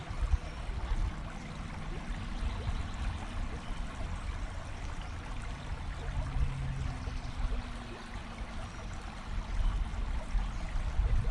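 River water gurgling and lapping against the side of a boat, a steady watery wash with a low rumble underneath.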